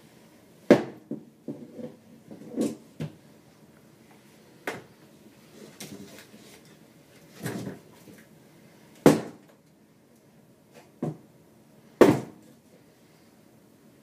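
Irregular knocks, clunks and scuffs from working by hand inside a kitchen sink base cabinet. There are three sharp, loud bangs: about a second in, around nine seconds and around twelve seconds.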